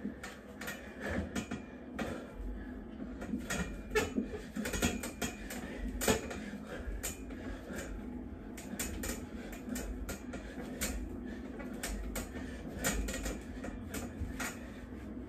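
Free-standing steel dip bars creaking and clicking under a man's weight as he does dips, in irregular knocks and creaks, the loudest about six seconds in. A steady low hum runs underneath.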